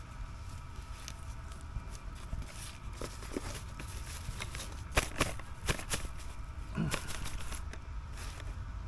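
Scattered clicks and scrapes of objects being handled, with the sharpest cluster of clicks about five to six seconds in, over a steady low rumble.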